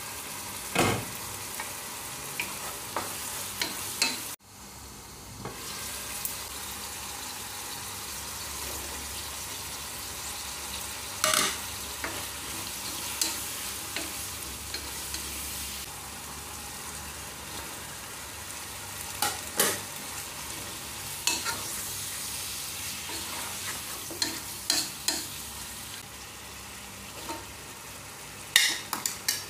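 Chicken and vegetables sizzling in a nonstick pot while being stirred with a wooden spatula, with scattered sharp knocks and scrapes of the spatula against the pan and clatters of a glass lid being lifted off.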